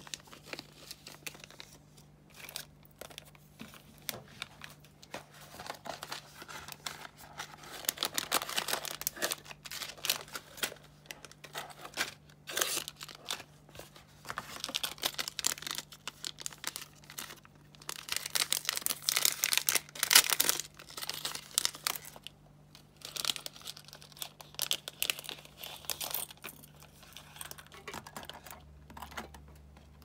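Small clear plastic packaging bags being crinkled and opened by hand: a crackling, rustling sound that comes and goes in bursts, loudest about two-thirds of the way through.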